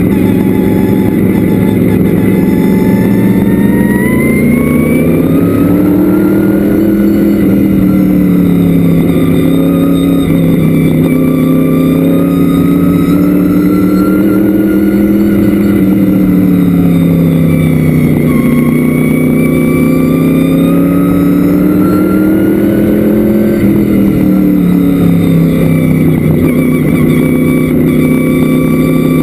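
Vintage modified race car's engine at racing speed, heard from inside the cockpit: loud, the revs rising and falling in long swells about every eight seconds as it accelerates and lifts around the oval.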